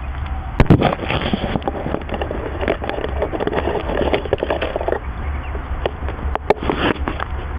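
Close rustling and irregular knocks right against the microphone, with a steady low rumble under them. A sharp knock comes just before one second in and another near the end.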